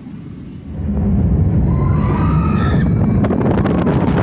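Wooden roller coaster train running on its track: a loud rumble that builds about a second in, a brief rising whine near the middle, and rapid clattering from about three seconds in.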